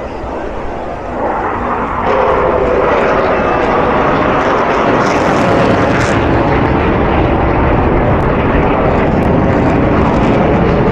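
Eurofighter Typhoon fighter jet flying past, its jet engine noise swelling about two seconds in and then holding loud and steady.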